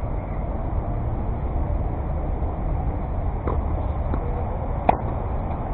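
Tennis ball being hit in a rally: a couple of faint knocks from the far end of the court, then one sharp racket-on-ball pop a little before the end. A steady low rumble runs underneath.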